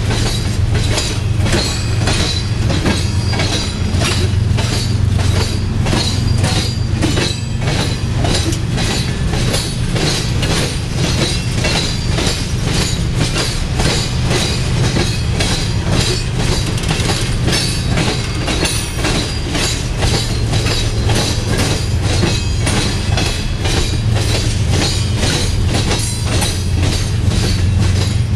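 Freight train of gravel cars rolling past, its wheels clattering steadily and rapidly over the rail joints over a low rumble.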